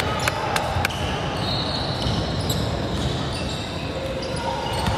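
A ball bouncing on a gym court, with a few sharp knocks in the first second, over a steady background of game and crowd noise in a large hall.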